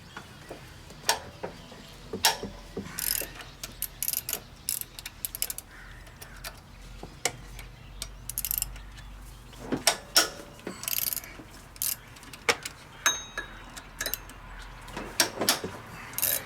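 Hand ratchet wrench clicking in short, irregular runs, with metal tools and sockets clinking, as bolts are worked loose on an engine.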